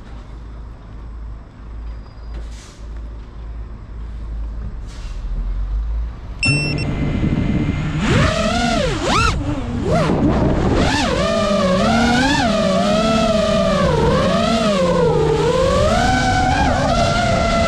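FPV quadcopter's brushless motors. After a low rumble, the motors start up at idle about six and a half seconds in. From about eight seconds they whine loudly, the pitch swooping up and down with the throttle as the drone takes off and flies.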